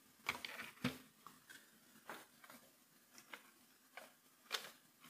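Handling noise: scattered light clicks and knocks of circuit boards and cables being fitted inside a helmet frame, the loudest two within the first second and another near the end.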